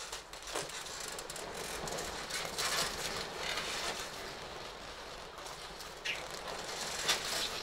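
Irregular rustling, shuffling and scuffing of people grappling on training mats, with clothing rustling and occasional soft knocks.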